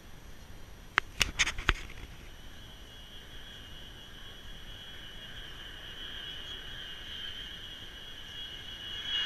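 Distant B-52 bomber approaching, its eight turbofan engines heard as a steady high whine that slowly grows louder. A quick run of sharp clicks about a second in.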